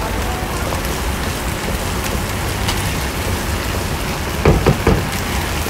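Steady sizzling of food frying over high heat, with a low rumble underneath and a few short knocks about four and a half seconds in.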